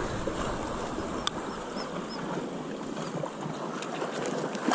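Steady hiss of wind and shallow surf, with a single sharp click a little over a second in.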